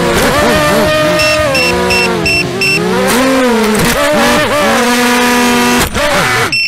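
FPV racing quadcopter's motors whining, the pitch rising and falling with the throttle, with a run of five short high beeps from the onboard buzzer between one and three seconds in. Near the end comes a knock, the motor whine cuts off and quick beeping starts.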